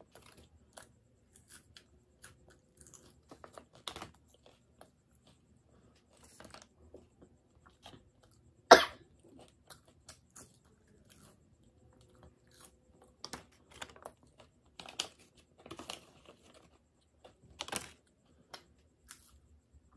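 Crunching and chewing of broken pieces of Jolochip extra-hot chips, with scattered crackles from the foil chip packet. One sharp, loud snap about nine seconds in.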